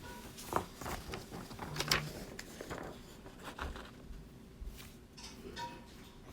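Scattered light clicks and rustles of handling noise, the sharpest click about two seconds in.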